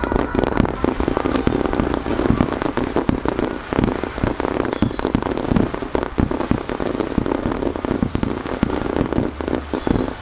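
Aerial firework shells bursting in a rapid barrage, with many sharp reports overlapping one after another and no pause between them.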